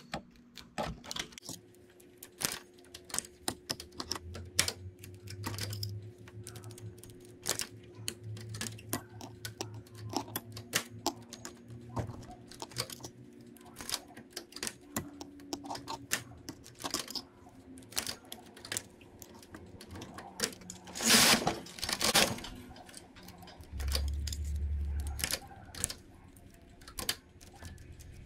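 Metal transfer tools clicking against the latch needles of a domestic knitting machine as stitches are lifted and moved one at a time to cross small cables: irregular light clicks and taps. About 21 seconds in, a louder sliding rasp lasting about a second, as the carriage is run across the needle bed.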